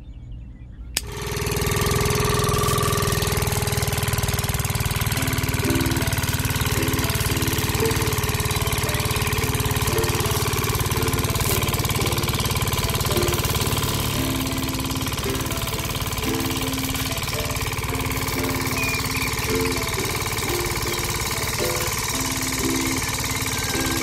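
Small electric motor of a miniature DIY rice threshing machine switches on about a second in and runs steadily while it threshes rice stalks. From about five seconds in its hum wavers up and down in pitch.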